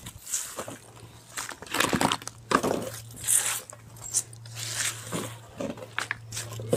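Hands scooping damp leaves and vegetable peelings off a concrete floor and dropping them into a plastic compost bucket: irregular rustling and crunching.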